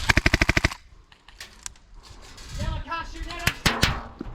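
Full-auto burst of about a dozen rapid, evenly spaced shots from an airsoft MP7 gas blowback rifle running on HPA, lasting under a second. A short shout and a few single shots follow near the end.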